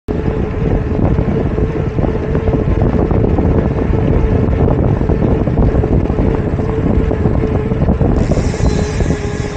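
Heavy wind buffeting on an action camera's microphone during a ride, with a faint steady hum underneath. The hiss grows brighter for a moment near the end.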